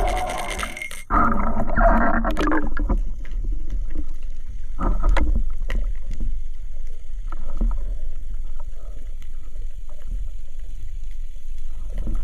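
Water noise picked up by an action camera held underwater. A loud rush of water starts suddenly about a second in and dies down after about two seconds. After that there is a low steady rumble with gurgling and scattered sharp clicks and knocks.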